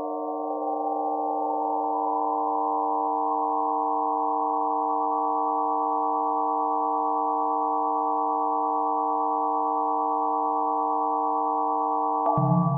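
Electronic drone of several steady sine tones sounding together as a chord, synthesised in Max MSP. One tone glides upward over the first two seconds to join the others. Near the end a click sounds and lower tones come in as the chord changes.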